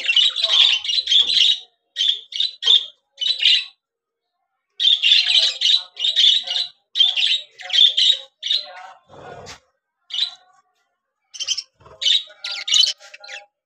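Budgerigars chattering in rapid runs of short, high warbling chirps, coming in clusters with a brief pause about four seconds in.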